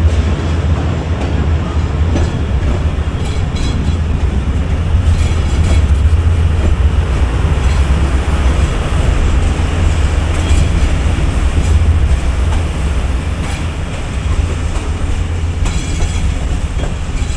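Passenger train hauled by a ZCU-30 diesel-electric locomotive running at speed: a steady, loud low rumble with wheels clattering over the rail joints.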